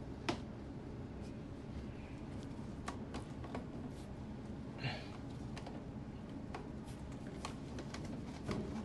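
Scattered light clicks and taps of small objects being handled over a low steady background, with a sharper click just after the start and a brief rustle or scrape about five seconds in.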